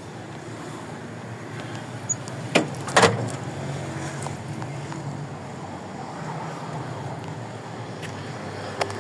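Motor vehicle running with a steady low hum of traffic, broken by two sharp knocks about two and a half and three seconds in and a lighter one near the end.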